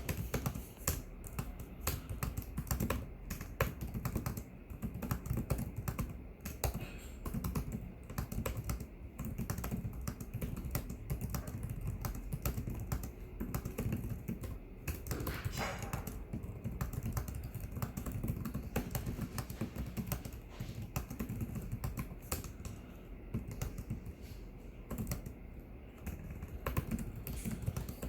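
Continuous typing on a Lenovo IdeaPad 330S laptop keyboard: rapid, irregular key clicks with short pauses between bursts.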